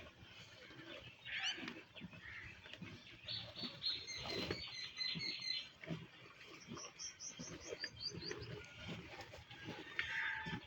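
Small birds chirping and trilling in bursts of quick repeated notes, over a run of short, soft low crunches from a buffalo tearing and chewing fresh grass.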